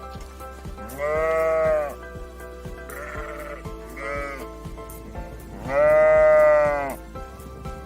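A sheep bleating, two long calls about four seconds apart, over light background music with a steady beat.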